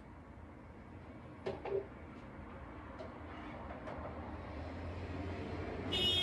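Spoon knocking against a saucepan while scooping hot cooked beetroot and carrot: two knocks about a second and a half in, then a few lighter taps. Just before the end, a loud hiss with a high steady whine starts.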